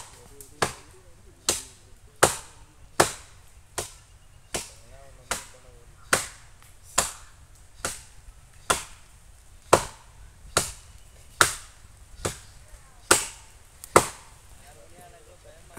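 Chopping blows of a hand blade cutting into a palm tree high up: a steady run of sharp strokes a little under one a second, which stop shortly before the end.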